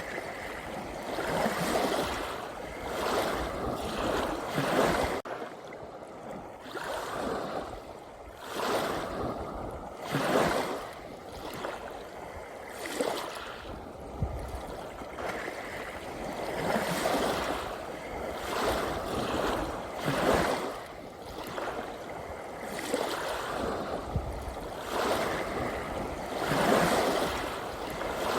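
Small sea waves washing in, a hiss of water that swells and falls back every two to three seconds.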